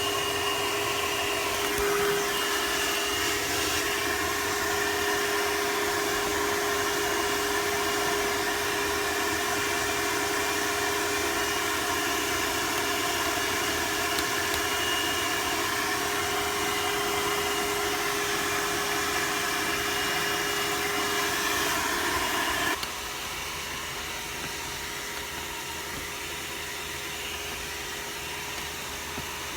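Vacuum cleaner motor running steadily with a held whine; about 23 seconds in it becomes quieter and duller.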